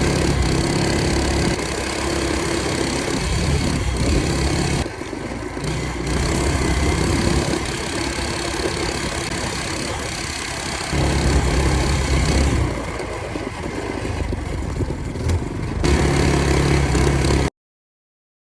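Fatcat FC 212 mini bike's single-cylinder four-stroke engine running, steady and even in some stretches and rougher and noisier in others as it is ridden; the sound cuts off abruptly near the end.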